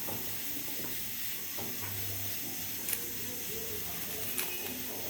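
Food sizzling as it fries in a pan, a steady hiss, with two light clicks about three and four and a half seconds in.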